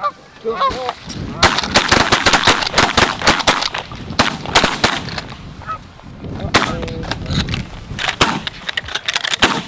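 Goose honking, then a rapid volley of shotgun fire from several hunters shooting at once: many shots in quick succession, a short lull, then more shots near the end.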